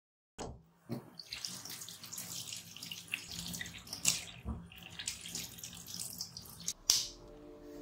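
Tap water running into a stainless steel sink as hands scrub potatoes under the stream, with splashes. It begins about half a second in.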